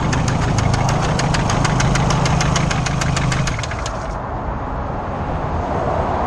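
VW Golf R32's VR6 engine idling with a loud, rapid rod knock, about six or seven sharp knocks a second, the sign of a failed connecting-rod bearing. The knocking stops about two-thirds of the way through, leaving a softer low hum.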